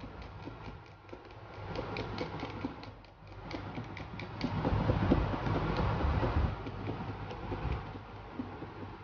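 Flour-and-spice mix shaken hard by hand in a lidded plastic food container: a rustling swish with many small knocks and clicks of the box and lid, loudest about halfway through.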